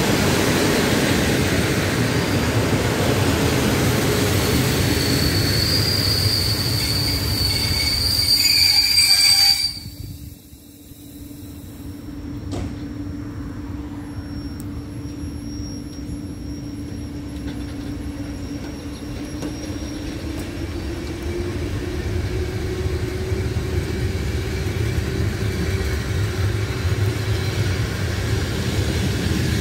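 Passenger coaches of a train rolling slowly past along a platform: loud wheel-on-rail noise with a high wheel squeal for a few seconds. About ten seconds in the sound drops away sharply, then a quieter rolling rumble with a steady low hum builds back up as the coaches keep passing.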